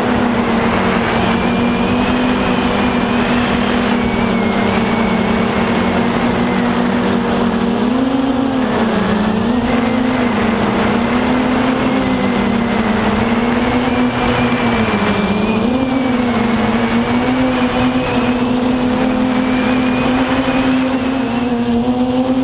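Quadcopter's four Tiger Motor 2216 800kv brushless motors with 10x5 propellers buzzing in flight, heard from the onboard camera, with a steady pitch that dips and recovers a few times as the throttle changes. Wind rushes over the microphone underneath.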